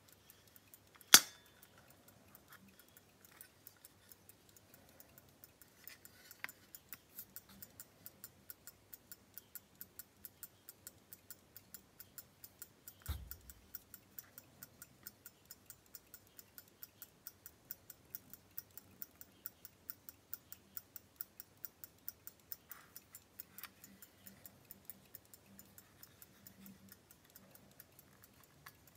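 Antique pocket watch with a virgule escapement ticking faintly and evenly, about two to three ticks a second, from about six seconds in. A sharp click of the gold case comes about a second in, and a soft knock from handling falls near the middle.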